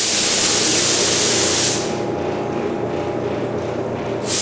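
Compressed-air gravity-feed paint spray gun hissing as it sprays the final coat of color: one burst of about two seconds at the start, then a second burst just before the end, over a steady low hum.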